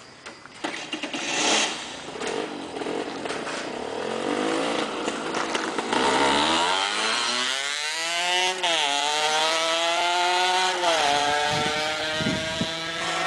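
Aprilia RS 50's 50cc two-stroke single-cylinder engine revving as the bike accelerates away. The pitch climbs steeply and drops back at each upshift, twice.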